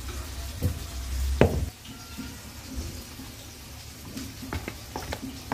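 Metal spoon stirring a thick eggplant and tahini mash in a plastic bowl, with scattered clicks and taps of the spoon against the bowl and a low rumble of handling in the first couple of seconds.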